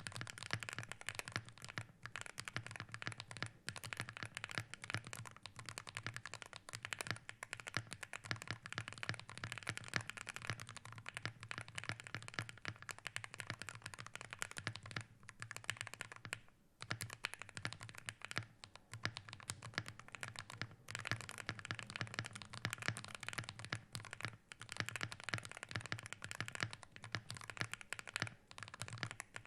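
Wooting 60HE mechanical keyboard with Geonworks Raw HE magnetic switches being typed on fast and continuously, a steady stream of key clacks with a brief pause about two-thirds of the way in.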